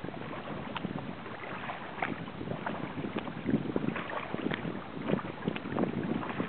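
Water splashing and lapping against a kayak's hull as it moves along, in many small, irregular splashes, with some wind on the microphone.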